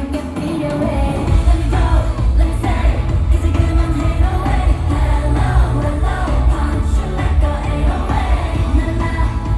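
K-pop song with female group vocals singing over a backing track with a heavy, steady bass beat.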